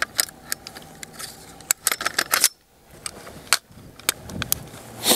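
Metallic clicks and clatter of a Colt LE6920 AR-15 rifle being handled, with a loud sharp bang at the very end.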